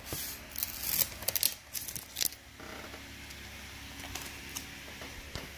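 Rustling and light clicks of thin vinyl stencil pieces being peeled from their backing and handled, in the first two and a half seconds or so, then only faint room tone.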